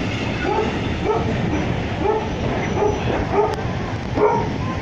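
A dog barking repeatedly, a short bark about every half second, over the steady rumble of railway coaches rolling slowly past on the track.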